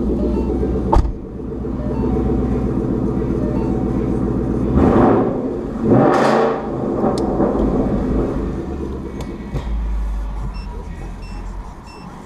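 2018 Ford Mustang GT's 5.0 V8 running at idle through an exhaust with the resonators deleted and Roush axle-back mufflers, with two short revs about five and six seconds in before it settles back to idle. A sharp click about a second in.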